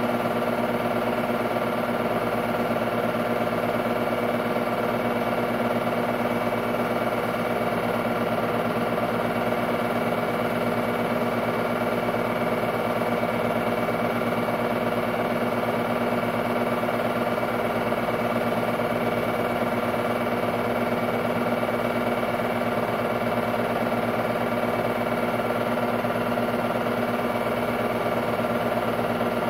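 Technicolor 810 8mm film-loop projector running: a steady mechanical hum made of several held tones, even in level.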